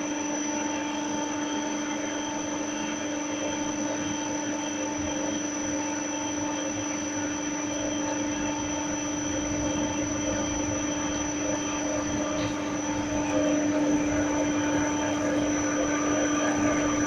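A 16K20 lathe converted to CNC with stepper motors, running with a steady mechanical hum and whine, getting a little louder about two-thirds of the way through.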